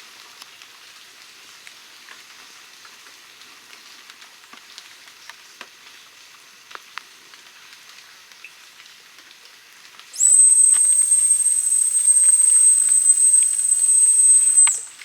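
Light rain pattering on foliage with scattered drips. About ten seconds in, a dog whistle is blown in one long, steady, very high note lasting nearly five seconds, then stops.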